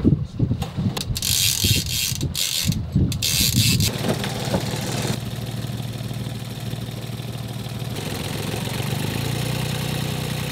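Knocking and clattering as the engine compartment cover is handled and opened, then a boat's 29-horsepower marine diesel engine running steadily. The engine is putting out white smoke and will not reach full revs, which the crew puts down to a fuel problem or a fouled propeller.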